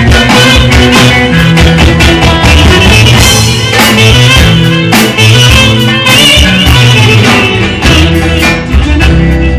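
Loud live Greek folk band music played through a PA, with electric guitar and a steady beat under held melodic lines.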